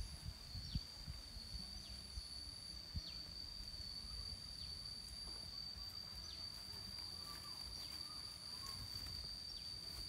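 Insects holding one steady, high-pitched drone, with several short falling chirps over it and a faint low rumble beneath.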